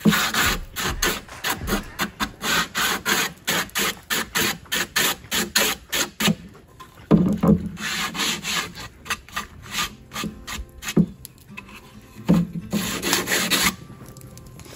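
Hand sanding a wooden board with sandpaper: quick back-and-forth rasping strokes, about three a second, broken by a few longer passes. It stops about a second before the end.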